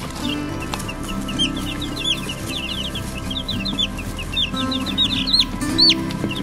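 Young chicks peeping: many short, high chirps overlapping, several a second, with one louder long falling peep near the end.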